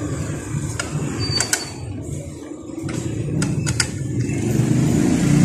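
Several sharp metal clicks from a socket extension working the clutch pressure-plate bolts as they are tightened, over a steady low rumble.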